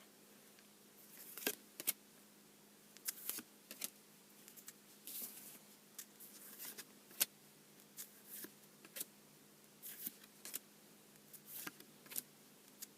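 Trading cards being handled: irregular soft clicks and short rustles as cards are slid, flipped and set down, over a faint steady hum.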